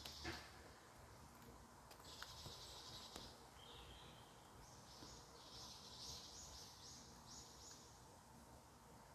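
Faint forest ambience with high, buzzy chirring calls in bursts of about a second, and a longer pulsing run in the middle. A light knock comes near the start.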